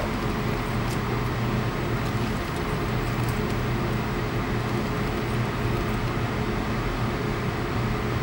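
Steady low machine hum with an even drone, the kind given off by ventilation or equipment running in a workshop, with a few faint light clicks in the first few seconds.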